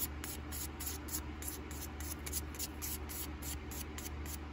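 Small piece of sandpaper rubbed by hand along the edge of an anodized aluminium knife handle scale, in quick, even back-and-forth strokes of about five a second, to smooth off its sharp edges.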